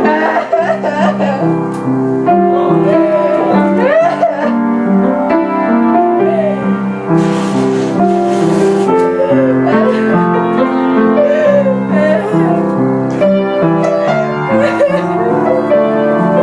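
Piano music playing a run of held chords that change about every half second. A brief hiss comes in about seven seconds in.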